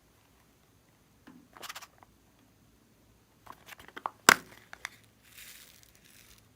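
Hands working slime and plastic piping bags: crinkling, crushing handling noises in short spells, with a cluster of clicks and one sharp snap about four seconds in.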